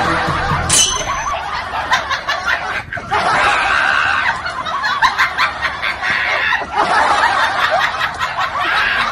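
Laughter, snickering and chuckling without a break, with many short laughing sounds overlapping.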